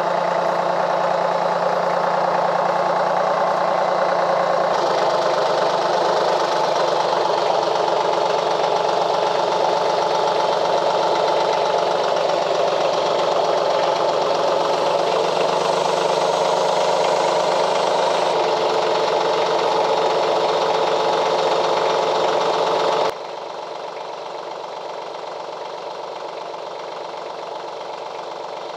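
Tractor engine running steadily; about 23 seconds in it drops abruptly to a quieter, steady idle.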